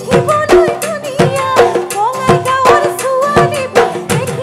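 Live Bihu band playing an instrumental break: a wavering, ornamented melody over steady drum beats about twice a second.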